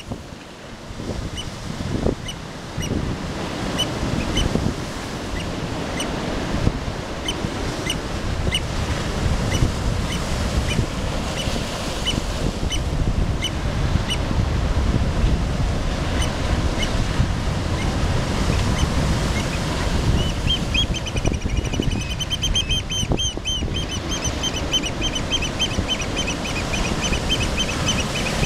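Surf breaking and washing over a rocky shore, with black oystercatchers giving scattered single sharp whistled calls. From about twenty seconds in, the oystercatchers break into a long run of rapid, loud piping calls.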